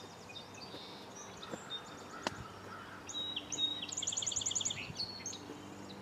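Song sparrow singing: a few introductory notes and then a rapid, even trill, a little past halfway through, with faint calls of other birds before it. A single sharp click sounds about two seconds in.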